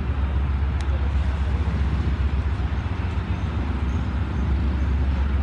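Steady low rumble of an approaching Pakistan Railways ZCU-30 diesel-electric locomotive.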